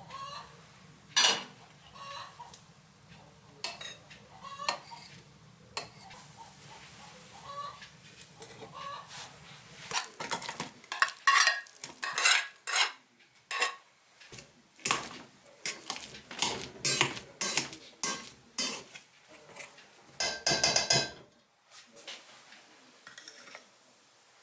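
Kitchen clatter: pots, dishes and metal utensils clinking and knocking in irregular strikes, a few at first, then coming thick and fast in the second half.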